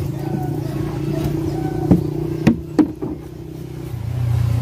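A motor engine running steadily in the background, with three sharp knocks about two to three seconds in.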